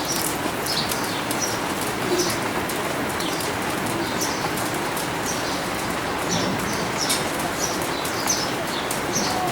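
Small birds chirping over and over in short, high notes that slide downward, above a steady hiss.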